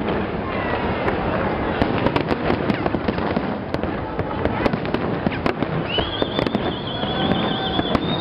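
Fireworks going off in a rapid, unbroken stream of pops, bangs and crackles. From about six seconds in, a high whistle holds nearly steady.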